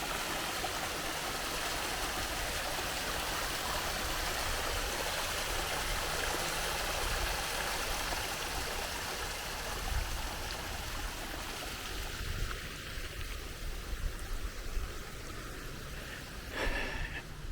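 Small stream running steadily, the water sound growing fainter about twelve seconds in, with a few low thumps near the end.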